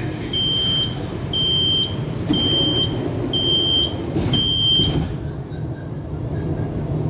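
Door-closing warning beeps on a CSR Zhuzhou LRT train: a high steady beep about once a second, five times, stopping about five seconds in, over the steady low hum of the train.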